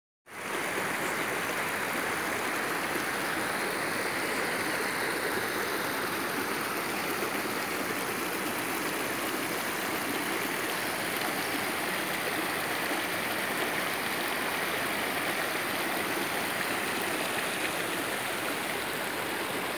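Steady rush of flowing water from a creek running high after rain, below a reservoir's concrete wall.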